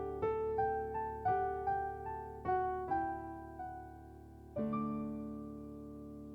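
Background piano music: a string of single notes, then a chord struck about four and a half seconds in that rings on and fades.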